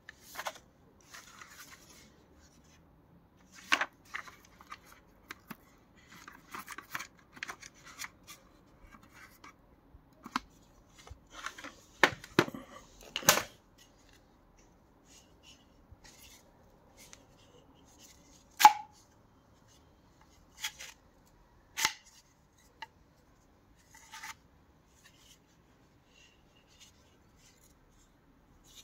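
Scattered clicks, knocks and rustling of hard plastic things being handled, with a cluster of louder knocks about halfway through and a few single sharp clicks later on; the vacuum cleaner's motor is not running.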